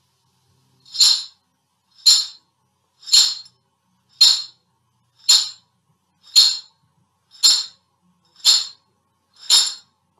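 Dried pasta in a clip-top glass jar shaken in a slow, even rhythm: nine short rattles about one a second, like measured footsteps, played to suggest someone walking along a stony path.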